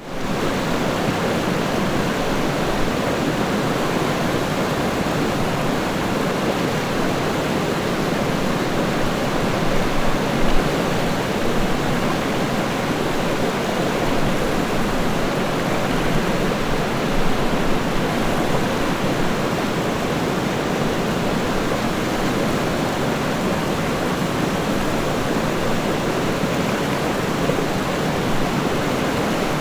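River water rushing in a steady, dense flow, with no single splashes standing out.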